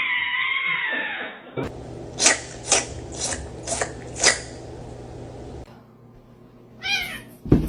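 A cat's drawn-out meow trailing off, then five short, sharp noisy bursts about two a second. Near the end comes another short meow and a single thump.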